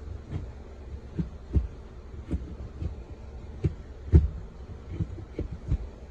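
Irregular low knocks and clunks, about a dozen in a few seconds, over a steady low hum: a Honda Insight's manual gear shifter being moved through the gears.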